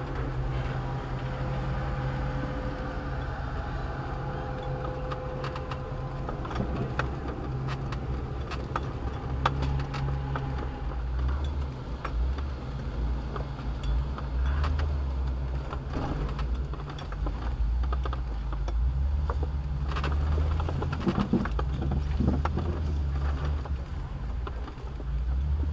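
Off-road 4x4's engine running low and steady while crawling a rocky trail, with scattered clicks and knocks of tyres and chassis over rock. The rumble grows heavier in the second half.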